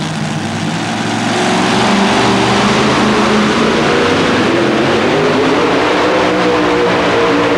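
Supercharged engine of a 1923 Altered T super modified two-wheel-drive pulling truck at full throttle, dragging a pulling sled. It revs up and gets louder over the first two seconds, then holds a steady high pitch.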